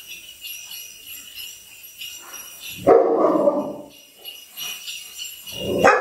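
Rottweiler barking at a sound played from a phone: two deep single barks, one about halfway through and one near the end, over a high jingling, bell-like ringing from the phone's speaker.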